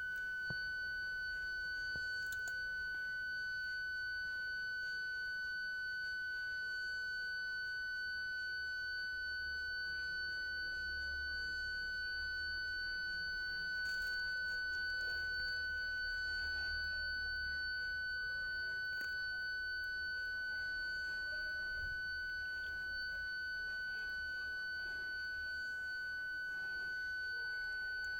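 Toyota parking sensor buzzer sounding one steady, unbroken high tone with no gaps between beeps: the continuous warning that an obstacle is at the sensors' closest range.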